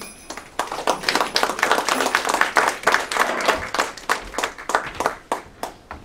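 Small audience clapping and applauding at the end of a song; the applause starts just after the music stops and thins out near the end.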